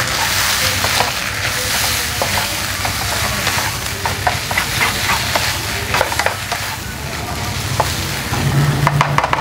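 Instant noodles, vegetables and canned fish sizzling in a non-stick frying pan while a wooden spatula stirs and tosses them, with scattered scrapes and taps of the spatula against the pan.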